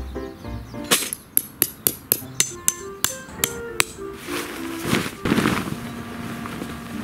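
Peg hammer driving a metal tent peg into the ground: about ten sharp, ringing strikes, roughly three a second, between about one and four seconds in. Near the end comes a rustle as the Tent-Mark Designs Circus TC tent's polycotton canvas is shaken out.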